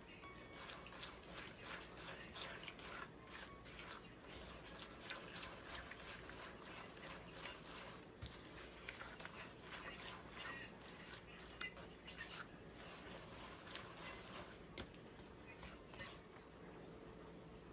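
Silicone spatula stirring and scraping against a stainless steel mixing bowl as an egg is beaten into a creamy batter: quick, irregular scrapes, fairly faint, thinning out near the end.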